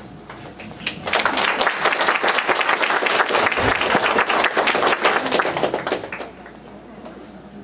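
Audience applauding: a burst of many hands clapping that starts about a second in, holds for about five seconds and then dies away.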